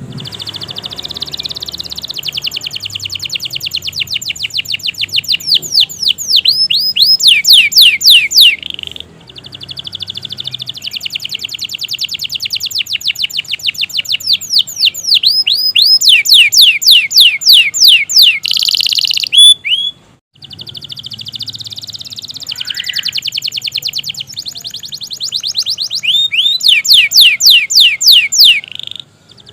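Domestic canary singing long, unbroken phrases: fast, even trills alternating with runs of loud, steeply falling whistled notes, several a second. There are brief pauses about nine and twenty seconds in.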